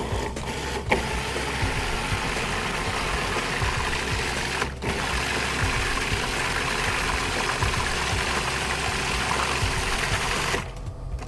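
Food processor motor running, its blade whirring through soft boiled pumpkin chunks and turning them into puree. The sound dips for an instant near the middle and stops shortly before the end.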